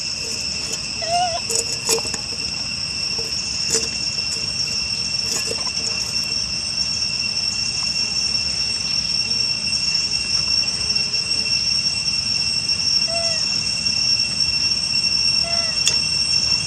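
Insects droning in a steady, high, even tone, with a few light clinks and knocks from a metal can being handled and a few short faint chirps.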